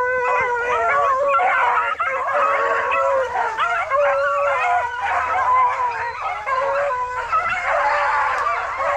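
A pack of beagles baying together, many voices overlapping without a break: the hounds in full cry running a rabbit.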